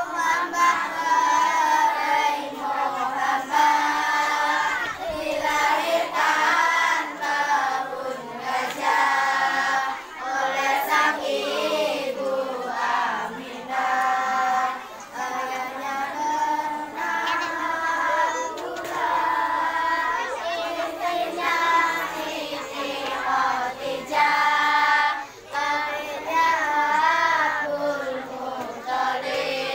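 A group of primary-school children singing together, with long held notes and short pauses for breath.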